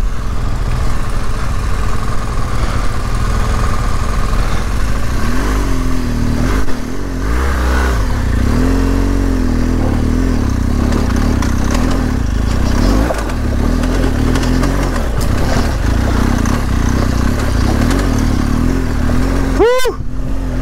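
A BMW R1200 GS Adventure's flat-twin engine is pulling at low speed over a rough, technical dirt trail. A few seconds in, the revs rise and fall several times as the throttle is worked. Wind noise runs over the microphone throughout.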